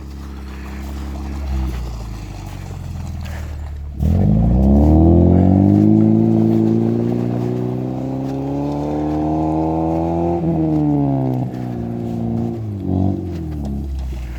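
Suzuki Vitara's engine running at low revs, then about four seconds in it suddenly gets louder and climbs steadily in revs under load, holds high, and drops back about ten seconds in, with one short rev near the end.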